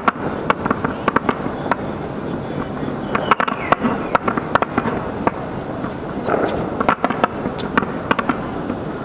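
A fireworks display going off: many sharp bangs and pops at irregular intervals, some in quick clusters, over a steady background rumble.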